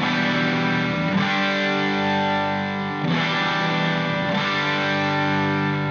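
Background music: distorted electric guitar chords with effects, the chord changing every second or two.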